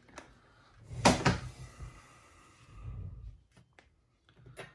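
Handling noise of small parts and tools on a workbench: one sharp knock about a second in, a dull rub around three seconds, and a few light clicks near the end.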